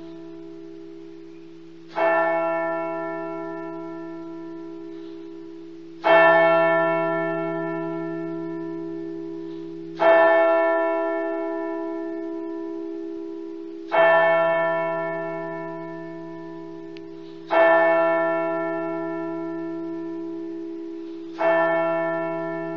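A single bell of the Mostyn House School carillon tolling slowly on one note, struck six times about every four seconds, each stroke ringing on and fading until the next. This is part of a memorial toll of eleven strikes for Armistice Day.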